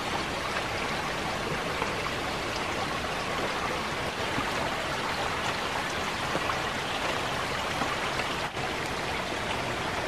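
Steady rain falling on leaves and muddy ground.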